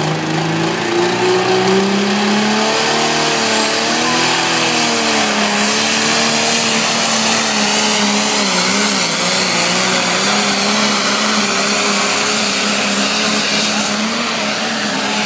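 Pulling tractor's diesel engine running flat out under load as it drags the sled, its pitch climbing over the first couple of seconds and then holding, with a wavering dip about eight or nine seconds in. A high whine rises about three seconds in and holds.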